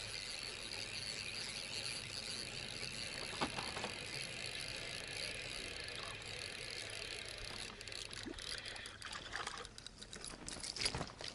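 Insects buzzing steadily in a high, even hum, with light water noise; from about eight seconds in, short splashes and clicks as a small hooked perch flaps at the surface and is lifted out.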